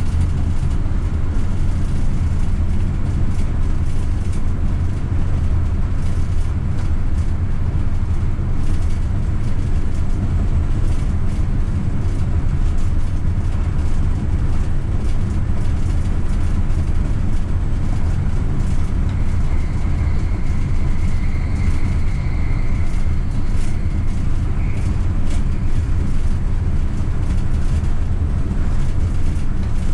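Electric Stadtbahn tram-train running on open track: a steady low rumble of wheels and motors. A faint high tone comes in for a few seconds about twenty seconds in.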